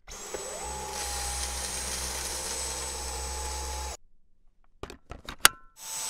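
Dyson Cyclone V10 cordless stick vacuum's motor spinning up within the first second to a steady high whine, then stopping suddenly about four seconds in. A quick run of clicks and one sharp snap follow, and the motor starts again just at the end.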